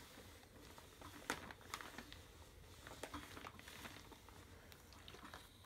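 Faint rustling and a few light ticks as a quilted fabric tray is handled and a steam iron is moved over its corner.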